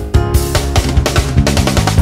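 Rock backing music with a steady drum-kit beat: kick and snare hits over sustained pitched instrument notes.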